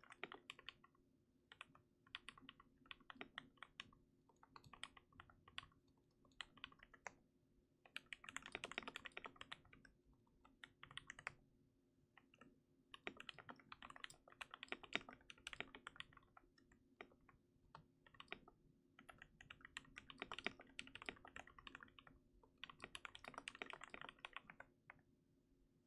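Custom KBD67 MKII mechanical keyboard being typed on: lubed and filmed Gateron Yellow linear switches on a brass plate, in a silicone-dampened case. Runs of fast keystrokes come in bursts separated by short pauses, and the typing stops near the end.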